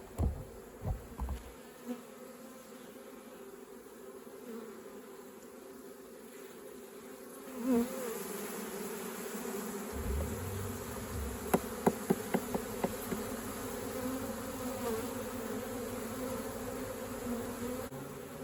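Honeybees buzzing around an opened hive in a steady hum that grows louder about eight seconds in, with a few sharp clicks, several of them close together about twelve seconds in.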